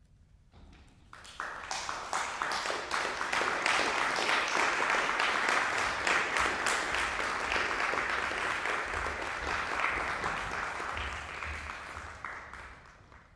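Audience applauding: the clapping starts about a second in, quickly grows full, and dies away near the end.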